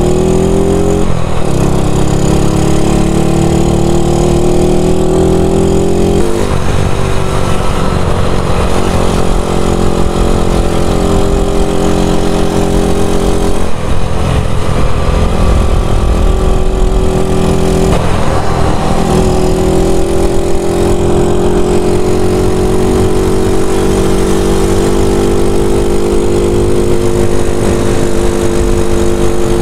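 Yamaha SRX scooter engine running under way, its pitch climbing steadily and falling back four times as the rider opens and eases the throttle, over heavy wind rush. The engine has just been overhauled.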